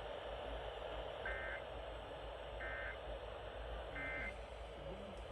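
Three short warbling two-tone data bursts of an Emergency Alert System broadcast, about a second and a half apart, heard over steady radio hiss. Bursts this short are the EAS end-of-message code.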